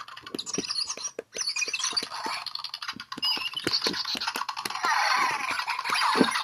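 Zhu Zhu Pet toy hamster making high, warbling squeaks and chirps over a quick run of clicks. The squeaking grows denser and louder about a second and a half in.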